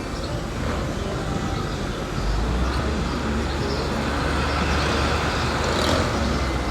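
Motor vehicle running with road noise, a deep low rumble swelling in about two seconds in and holding steady.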